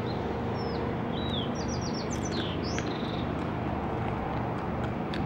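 Small bird chirping: a run of short, high whistled notes and quick trills in the first three seconds. Under it runs a steady low rumble.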